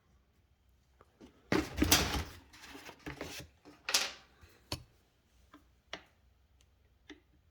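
Clattering and sharp metallic clicks from handling chainsaw chain and tools on the rivet spinner: a loud rattle about a second and a half in, a few smaller clatters, then scattered single clicks.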